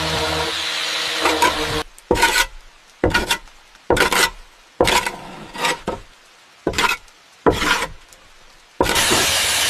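A hand tool worked along wood in about eight separate strokes, with short pauses between them. A steady whirring noise runs before the strokes and comes back near the end.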